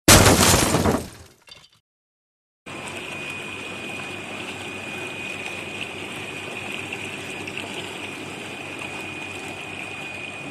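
A loud burst of noise fades out over the first second and a half. After a short silence, a bubble washer for fruit and vegetables runs, its tank churning with air bubbles in a steady rush of water with a constant high whine.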